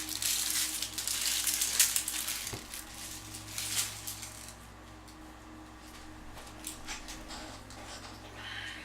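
Foil wrapper of a trading-card pack being torn open and crinkled. It is loud and crackly for the first four seconds or so, then gives way to quieter handling noises.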